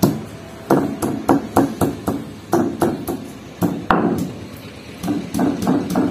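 Stone pestle of a sil-batta held upright and pounded on the grinding slab, crushing garlic and ginger into masala. Quick uneven knocks, about three a second, with a short pause after the loudest knock about four seconds in.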